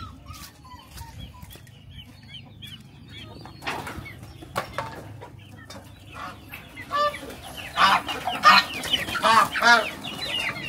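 A flock of chickens clucking, with a run of loud calls about seven seconds in.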